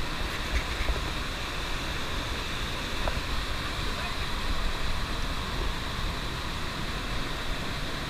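Steady rushing of a fast-flowing rocky jungle stream tumbling over boulders in white-water cascades.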